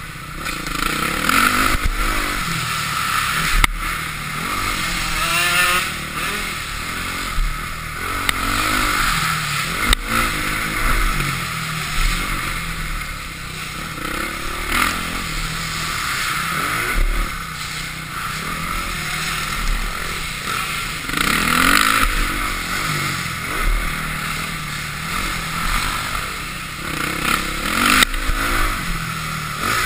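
2005 Honda CRF450R's single-cylinder four-stroke engine revving up and falling off again and again as the dirt bike is ridden hard around a motocross track. A few sharp knocks are heard, one about four seconds in and one near the end.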